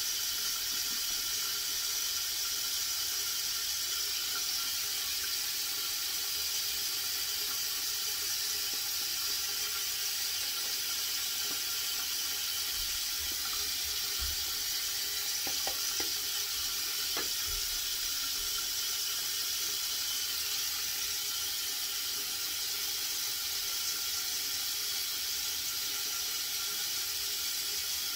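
Shower water running steadily: an even, unbroken hiss of spray.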